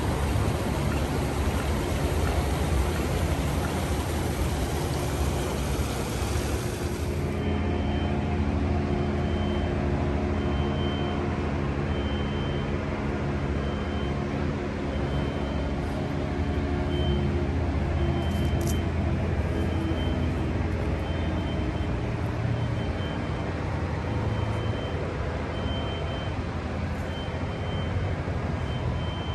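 Rushing water from a fountain cascade for the first several seconds. It then changes abruptly to a large vehicle's engine running with a steady low hum, and a reversing alarm beeping about once a second.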